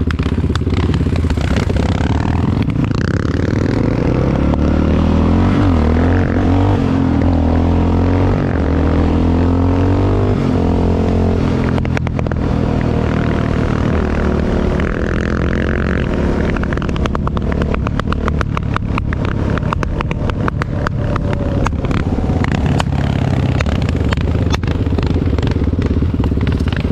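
Yamaha Raptor 660 ATV's single-cylinder four-stroke engine running under way, its pitch rising and falling as it is throttled on and off. A spell of rapid clatter comes about two-thirds of the way through.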